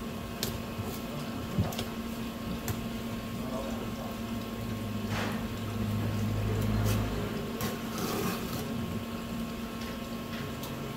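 Light taps and knocks of a knife and a wet flounder fillet being handled and skinned on a plastic cutting board, a few sharp clicks scattered through, over a steady machine hum. A low rumble swells for about two seconds around the middle.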